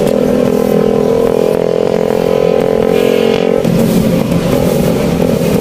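Motorcycle engine running at a steady speed on the move, with a constant rush of road and wind noise. About three and a half seconds in, the steady engine note breaks up and turns rougher.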